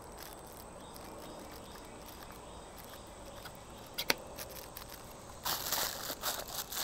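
A single sharp click about four seconds in, then plastic packaging crinkling and rustling in the hands as a small telescope eyepiece is unwrapped.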